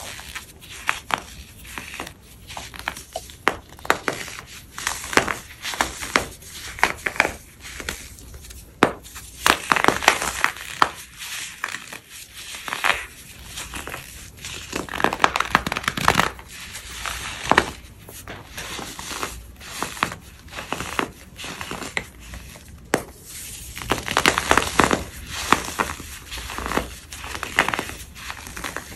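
Crumbly white pressed-powder blocks being crushed and crumbled: a continuous run of dry, crisp crunches and crackles, with louder, denser bursts about a third of the way in, in the middle and near the end.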